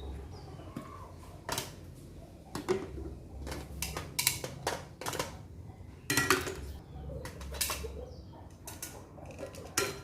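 Tongs clinking and knocking against a sterilizer pot and feeding-bottle parts as the parts are placed inside for sterilizing. The strikes are irregular, about a dozen of them, over a low hum.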